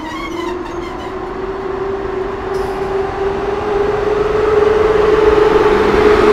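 PolRegio EP07P electric locomotive pulling away with its passenger coaches. It makes a steady whine that climbs slowly in pitch as it gathers speed, while the running noise of wheels on rail grows louder.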